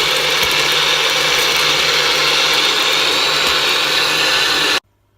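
Electric blender running at a steady high speed, blending a smoothie of ice, fruit and water. It is loud and even, then switches off abruptly near the end.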